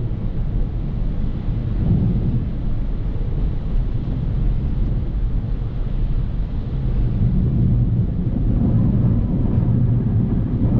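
A BMW F30 335i driving through deep snow, heard from inside the cabin: a steady low rumble of tyre and road noise, with snow scraping along the underside of the car.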